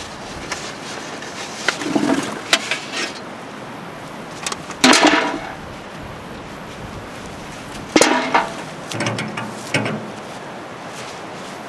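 Potatoes and galvanized metal buckets being handled in a potato field: short knocks and rattles, a louder clatter about five seconds in, and a sharp metal clank with a brief ring about eight seconds in, over a steady outdoor background hiss.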